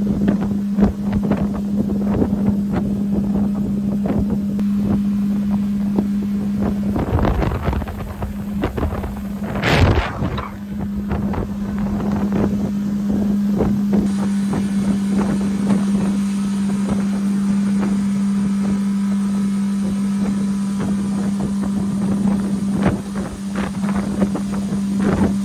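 Pontoon boat's motor running at a steady cruising hum, with wind buffeting the microphone. There is a louder rush of wind noise about ten seconds in.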